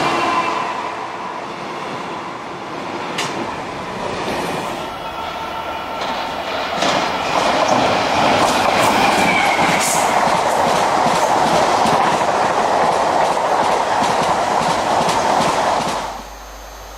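Loaded freight wagons rolling past at speed: a steady rushing rumble of wheels on rail with rapid clicking over rail joints and a brief faint wheel squeal. At the start the engine hum of the departing Class 66 diesel locomotive fades out. The wagon noise grows louder about seven seconds in and cuts off abruptly near the end.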